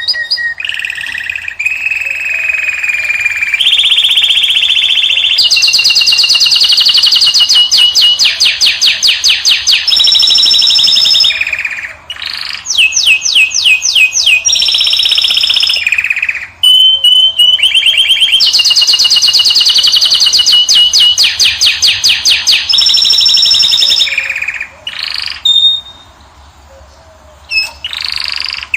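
Caged finches, a European goldfinch and a canary, singing loudly: long runs of fast repeated high notes and rolled trills, each phrase changing pitch, with brief pauses between phrases and a quieter stretch near the end.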